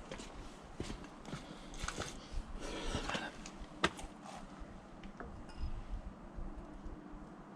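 Small clicks, taps and rustling from hand tools and small metal parts being handled during engine thread repair, with one sharp click about four seconds in.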